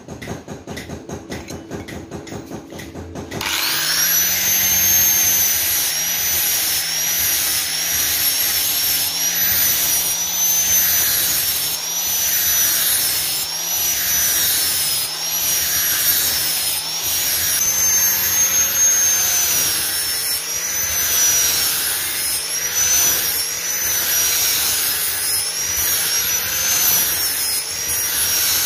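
Electric angle grinder with a flap disc starting up about three and a half seconds in, then sanding a steel hammer's head and handle: a high motor whine that sags in pitch each time the disc is pressed onto the metal and recovers as it lifts, over a gritty rasp. Before it starts, a low rhythmic rattle.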